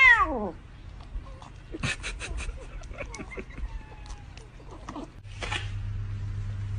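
A cat meows once with a falling pitch right at the start. Short wet clicks and smacks follow about two seconds in as it licks a squeeze-tube cat treat. A steady low hum sets in about five seconds in.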